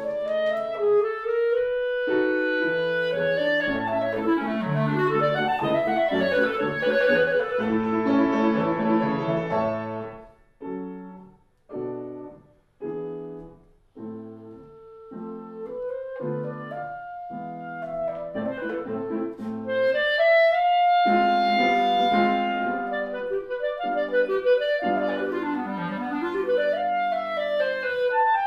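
Clarinet and grand piano playing a classical piece together, the clarinet carrying the melody over the piano. About a third of the way in the music breaks into short detached notes with brief silences between them, and later the clarinet holds one long high note.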